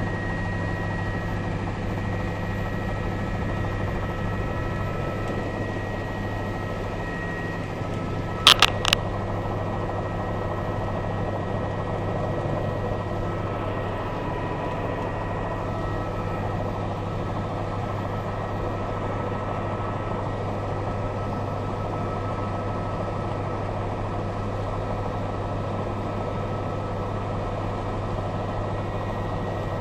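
Helicopter cabin noise: a steady drone of rotor and engine with a constant whine above it. Two sharp clicks come close together about eight and a half seconds in.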